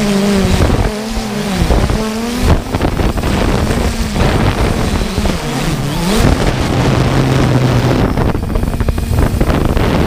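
3DR Solo quadcopter's motors and propellers buzzing, their pitch dipping and rising again several times as the drone manoeuvres, with wind rushing over the microphone.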